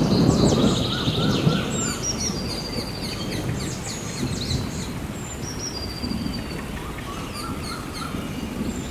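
Many birds chirping and whistling, with a low rumble that is loudest in the first two seconds and then settles.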